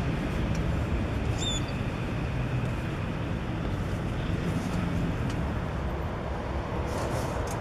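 Steady low rumble of a beer delivery box truck's engine idling while the truck stands still, with a brief high chirp about one and a half seconds in.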